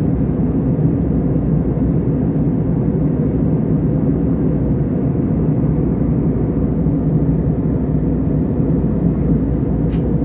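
Steady, even drone of an airliner in flight: engine and airflow noise heard inside the cabin, with no rise or fall in pitch. A short click near the end.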